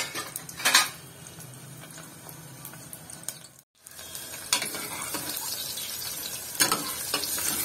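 Shallots sizzling in hot oil in an aluminium pressure cooker, stirred with a steel ladle that clinks sharply against the pot a few times. The sound cuts out briefly just before four seconds in.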